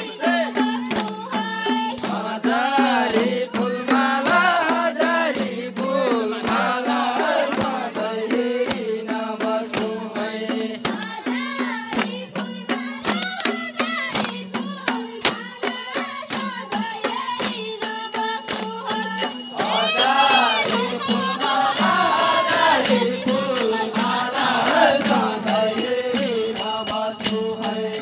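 Group singing of a Deuda folk song from far-western Nepal, wavering chant-like voices over a steady percussive beat.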